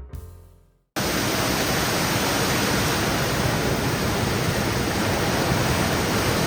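A low music note fades out, then a steady, loud rushing noise cuts in abruptly about a second in and holds evenly.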